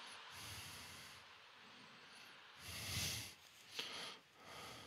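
A man's faint breathing close to the microphone during a pause in his talk: a few soft breaths, the clearest about three seconds in, with a small click just before four seconds.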